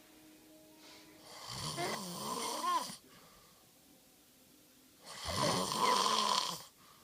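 A sleeping person snoring loudly: two long snores, each about a second and a half long, with a pitch that wavers up and down, separated by a quieter pause.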